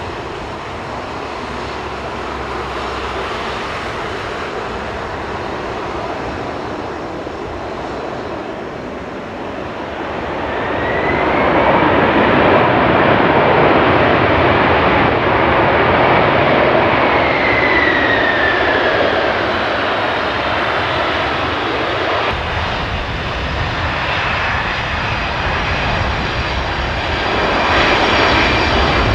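Boeing 747-400 freighter's four jet engines running as it touches down and rolls out along the runway. The engine noise swells about ten seconds in and stays loud for about ten seconds, with a high whine that rises and later falls, then eases before building again near the end.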